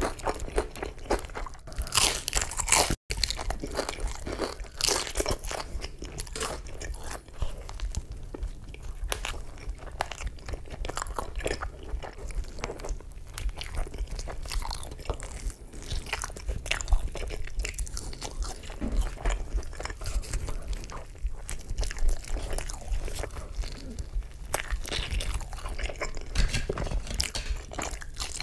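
Close-miked ASMR eating: biting into and chewing a grilled tortilla wrap, with many crunchy bites and mouth sounds. There is a brief dropout about three seconds in.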